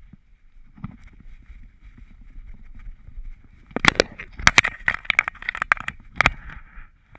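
Soft rustle of grass against the dog's body and the harness-mounted camera, then, from a little past halfway, a quick series of sharp knocks and rattles from the harness and camera mount as the dog jerks and twists its head around.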